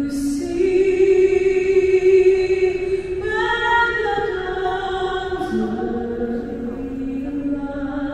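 Singing: a slow vocal melody in long held notes that step from pitch to pitch every second or two.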